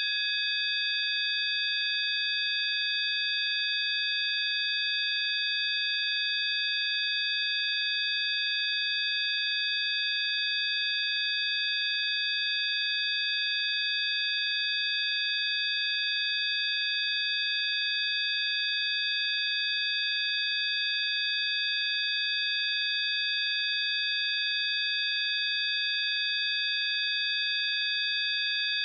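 Electronically generated sine tones: several steady high-pitched pure tones sounding together, held without any change in pitch or loudness, a 'healing frequency' tone.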